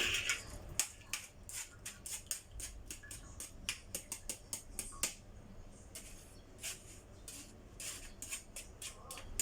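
Kitchen utensils and dishes being handled: light, irregular clicks and taps, several a second.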